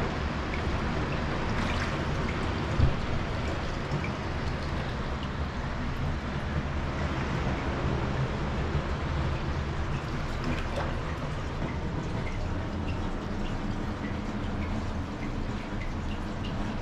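Hot spring water pouring steadily into an open-air bath, with scattered small drips and a single short knock about three seconds in.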